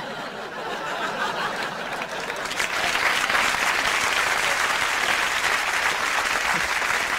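Studio audience applauding a stand-up comedian's punchline, the applause growing louder about two and a half seconds in.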